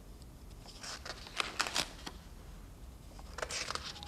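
Paper rustling as pages of a spiral-bound sketchbook are turned by hand, in two short spells: about a second in and again near the end.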